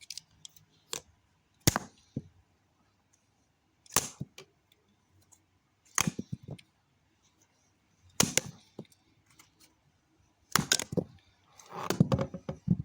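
Sharp plastic clacks and knocks, about one every two seconds, from a remote control being handled. A longer rattling knock comes near the end.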